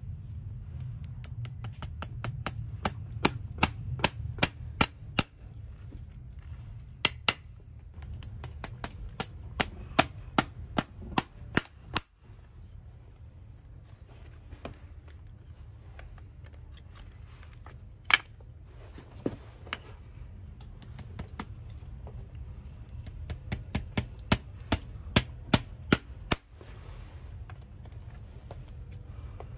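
Farrier's hammer tapping on the nails of a steel horseshoe in a horse's hoof: runs of sharp metallic taps, two to four a second, broken by pauses, with a last quick run near the end.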